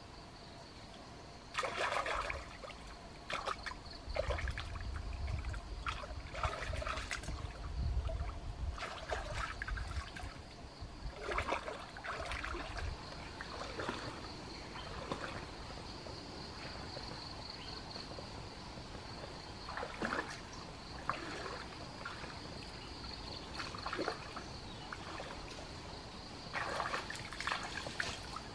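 Stream water splashing and sloshing in irregular bursts as a person wades and scoops with hands and a small net in the shallows, over a steady trickle. A steady high-pitched whine runs underneath, and a low rumble sits under the splashing for several seconds early on.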